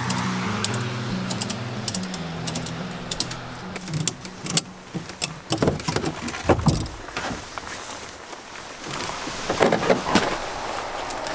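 Background music fading out over the first few seconds, then irregular metallic clicks and clinks of tie-down strap buckles with rustling of nylon webbing as canoes are strapped down in a pickup bed.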